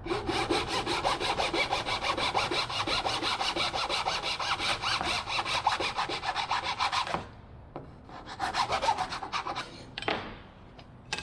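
Hand saw cutting through a thin wooden strip in quick, even back-and-forth strokes. The sawing stops about seven seconds in and resumes briefly a second later.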